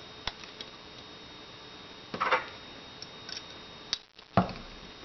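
A pistol slide and a steel pin punch being handled: a few sharp metal clicks, a louder rattling knock about two seconds in, and the heaviest knock near the end.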